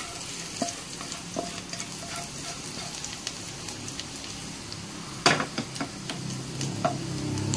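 Minced garlic sizzling in oil in a nonstick wok while a spatula stirs and scrapes it, with small crackles throughout and a sharp knock about five seconds in.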